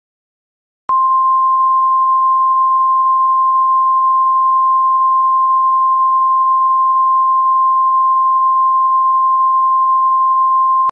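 Emergency alert attention tone: a single steady high-pitched tone near 1 kHz, the NOAA Weather Radio 1050 Hz warning alarm, starting about a second in and holding for about ten seconds before stopping abruptly. It signals that a weather warning message is about to be read.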